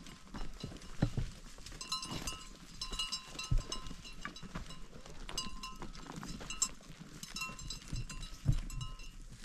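Livestock bells on a moving flock clinking and ringing in irregular bursts, with a few dull thumps among them.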